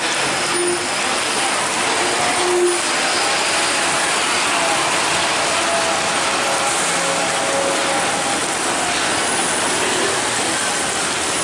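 Steady hiss of rain and tyres on a wet road as a long, loaded semi-trailer truck and motorcycles roll past.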